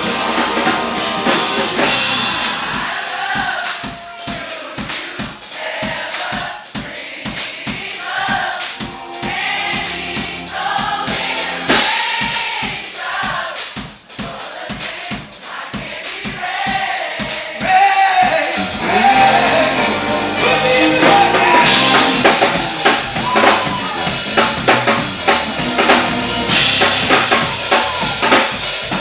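Live band playing with several voices singing over a drum kit's steady bass-drum beat; the band comes in louder and fuller about two-thirds of the way through.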